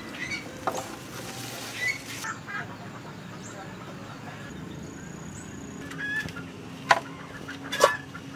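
Leafy longan branches rustling as they are handled and laid on a wooden table, with two sharp knocks near the end. Short bird calls sound over a steady outdoor hiss.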